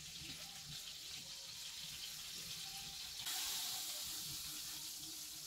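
Floured pike belly pieces sizzling in a hot frying pan, a steady hiss that grows louder about three seconds in as more fish goes into the pan.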